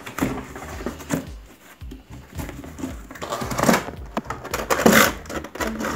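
Cardboard box being handled and opened, its lid flaps rubbing and scraping, with louder scrapes about three and a half seconds and five seconds in.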